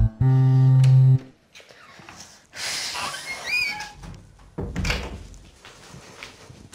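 A short musical sting ends with a held chord about a second in. After it, a wooden door is opened with a squeak and shut with a thud about four and a half seconds in.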